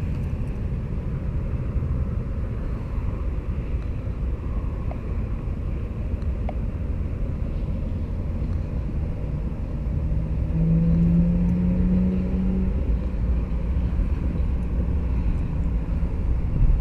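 Steady low rumble with a motor vehicle's engine hum that grows louder and rises slightly in pitch about ten seconds in, then fades back.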